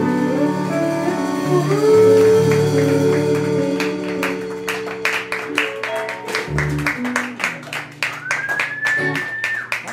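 Live band (electric guitars, upright bass, pedal steel guitar, saxophone and drums) playing out the end of a slow soul-country song, with chords held. From about four seconds in there is a string of sharp clicks or hits, and near the end one note slides up in pitch and holds.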